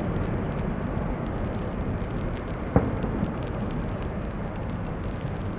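Rumble of a departing Airbus A319's jet engines, slowly fading. A single sharp knock comes nearly three seconds in.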